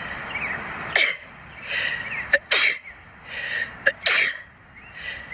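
A person sneezing several times in quick succession, sharp sneezes about a second or so apart with breathy intakes between them. These are sun sneezes set off by looking into bright sunlight (photic sneeze reflex).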